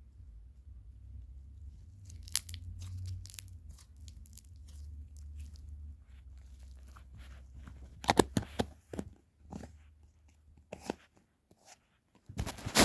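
Slime being squeezed and stretched: sharp crackling and popping clicks in irregular clusters, loudest about eight seconds in and again at the very end.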